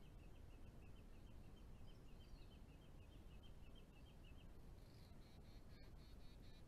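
Near silence: faint outdoor background hiss with a faint, high, rapid ticking at about five ticks a second, stopping about four and a half seconds in, then a few faint high pulses near the end.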